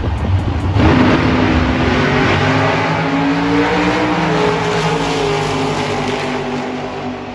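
Drag racing cars launching at full throttle about a second in. The engine note rises and falls as the cars run down the strip, and it fades toward the end as they pull away.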